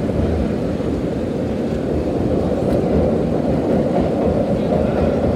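Vintage IND R1-9 subway train running at speed through a tunnel: a steady, loud rumble of wheels on rail, heard from inside the car.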